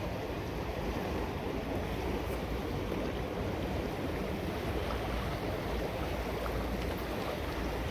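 Steady rush of fast-flowing river water, an even noise with no breaks or separate sounds.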